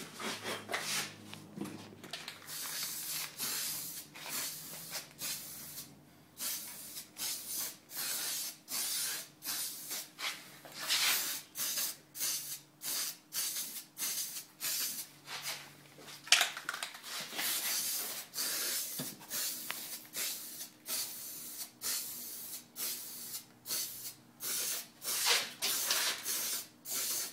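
Spray can of black paint hissing in many short bursts, one to two a second, as it coats two small chrome car-interior handle pieces.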